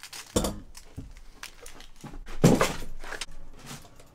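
Knocks and thuds of objects being moved and handled around a workbench, with a sharp knock about a third of a second in and a louder thud with a short rattle about two and a half seconds in.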